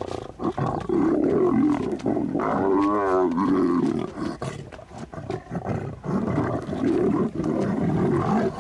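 Lions growling and snarling over a kill as they feed, a jostling squabble for the meat. About two and a half seconds in, one lion gives a sharper, wavering snarl.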